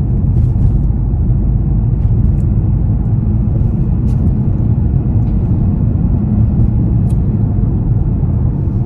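Steady low road and engine rumble of a moving minivan, heard from inside the cabin.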